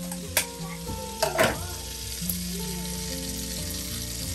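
Butter sizzling steadily in a small frying pan on a gas stove. Two sharp clicks come from an eggshell being cracked with a knife edge over the pan, one about half a second in and one about a second and a half in.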